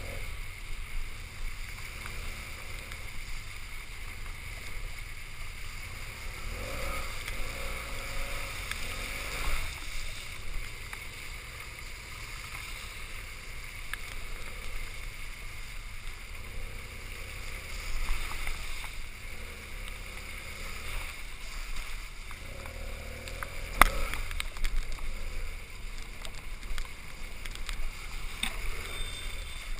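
BMW GS parallel-twin motorcycle ridden along a wet gravel track, picked up by a helmet-mounted camera as a steady low rumble of engine and wind with tyre noise. One sharp knock comes late on.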